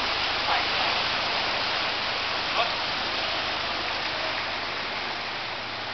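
Steady rush and splash of flood water churned up by a water tanker truck driving through it, with the truck's engine a low hum underneath that fades near the end.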